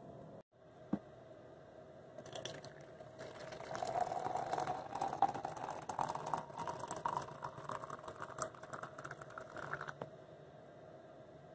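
Hot water poured from a kettle into a glass French press onto coffee grounds: a splashing, crackling pour lasting about eight seconds, its pitch rising slightly as the press fills.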